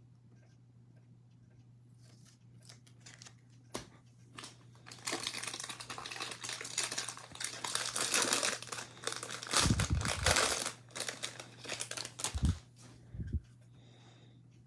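Foil wrapper of a Topps baseball card pack crinkling and tearing as it is opened by hand, loudest through the middle, with a few soft thumps near the end. A faint steady hum sits underneath.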